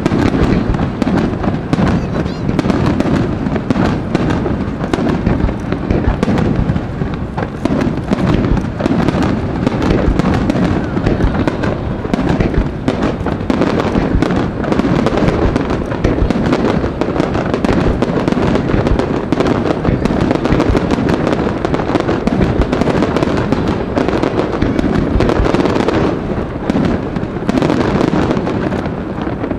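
Aerial firework shells bursting in quick succession: a dense, continuous run of bangs and crackling.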